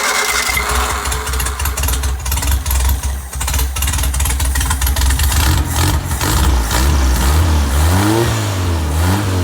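Freshly rebuilt engine on a test stand with no muffler, started hard: the starter's cranking stops about half a second in as the engine catches, then it runs loudly and is revved up and down twice near the end. The hard start comes from the ignition timing not yet being set.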